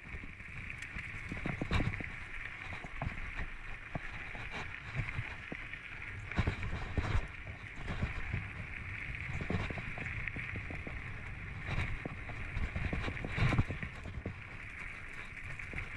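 Giant Anthem full-suspension mountain bike riding dry dirt singletrack: tyres rolling over dirt and leaf litter, with irregular knocks and rattles from the bike over bumps and a steady high hiss under it.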